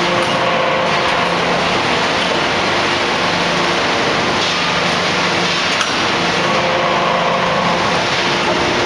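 A 4000-ton hot forging hydraulic press working a red-hot billet: a loud, steady machine noise with a pitched hum that fades and comes back every few seconds, and a brief click about six seconds in.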